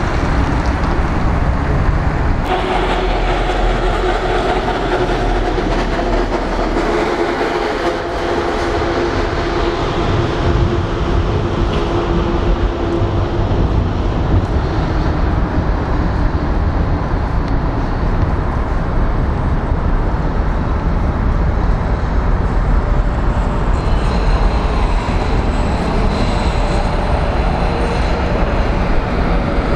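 Vintage tramcars running on street track: wheels rumbling over the rails with the motors' steady hum. In the last few seconds a thin high squeal of wheels grinding on the rails comes in.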